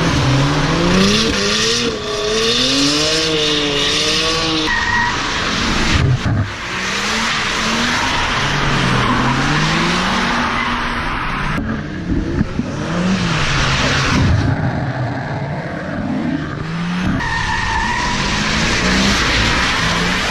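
Drift cars sliding sideways on wet asphalt: engines revving up and down over the rough hiss of spinning, skidding tyres. The sound changes abruptly several times as one car gives way to the next.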